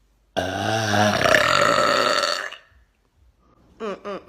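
A woman's loud burp, starting about half a second in and lasting about two seconds. Short vocal sounds follow near the end.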